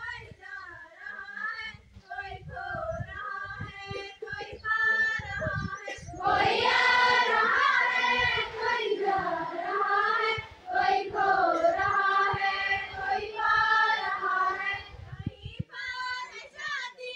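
Students singing together at a morning assembly. A few voices carry the line at first, then the whole group comes in much louder about six seconds in, and it thins out again near the end.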